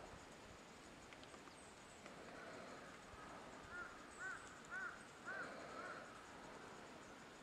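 A bird in the distance calling five short, arched notes about half a second apart, over the faint hiss of a quiet winter forest.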